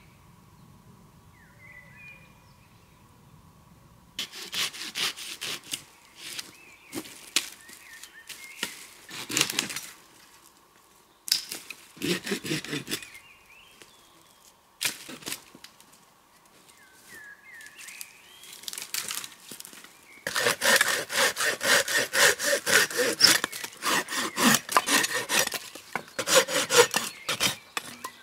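Hand saw cutting dry dead wood in bursts of quick back-and-forth strokes, then in a long unbroken, louder run near the end. A few birds chirp briefly before the sawing starts.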